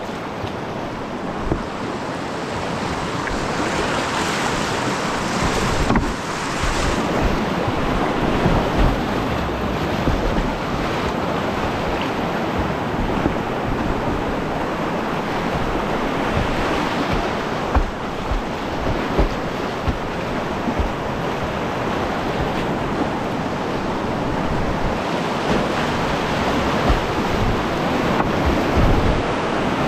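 Whitewater rapids of a creek rushing close around a kayak, a steady loud churn that grows a little louder as the water gets rougher, with a few brief louder splashes.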